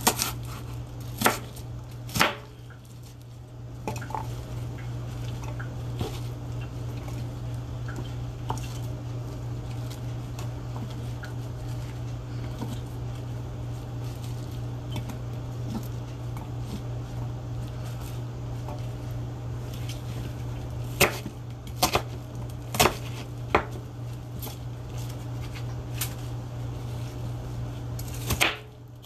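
Chef's knife chopping an onion on a plastic cutting board: scattered sharp knocks, a quick run of four strikes about two-thirds in, and more near the end. A steady low hum runs underneath.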